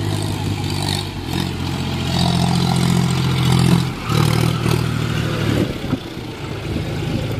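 John Deere four-wheel-drive tractor's diesel engine revving under load as the stuck tractor tries to drive out of slippery ground. It climbs in pitch around two seconds in, dips briefly about four seconds in, revs again, then drops back near the end.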